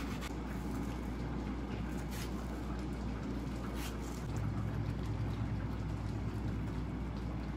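Steady low rumbling hum in a kitchen, growing a little louder about halfway through, with a few faint taps of a kitchen knife against a glass cutting board as a mango is sliced.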